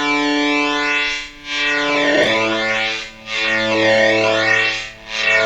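Fuzz-distorted electric guitar through an analog through-zero flanger, the flange sweeping around the zero point so the held notes whoosh and almost cancel out about every second and a half to two seconds; negative polarity gives that cancellation. A new note comes in about two seconds in.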